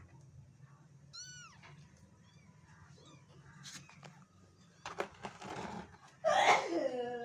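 Cat and kittens meowing: a short, high-pitched kitten mew about a second in, some scuffling noises around five seconds in, then the loudest sound, a longer meow that falls in pitch near the end.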